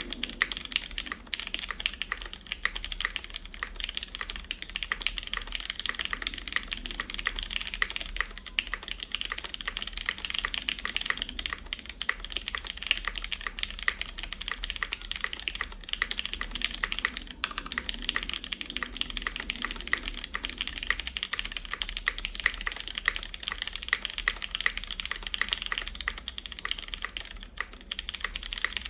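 Steady, fast typing on a CannonKeys Blaine v2 SE mechanical keyboard in its o-ring mount: Krytox-lubed Cherry MX Brown switches in an aluminum plate, with GMK keycaps. The typing starts right as the sound begins and dips briefly near the end.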